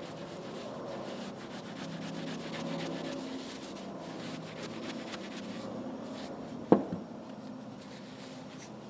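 A cloth rubbing over a screwdriver's plastic handle and steel shaft, wiping on cleaner wax. A single sharp knock about two-thirds through as a screwdriver is laid down.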